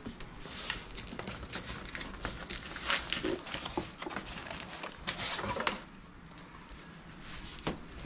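Plastic packaging crinkling and rustling as PC parts and their cable harness are handled and unpacked, in irregular bursts with a few louder rustles in the middle and quieter near the end.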